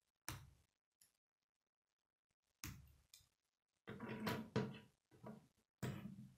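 K'nex plastic rods and connectors being handled, pulled apart and set down on a wooden tabletop: a string of short plastic clicks and clatters, one about a quarter second in, then several close together through the second half.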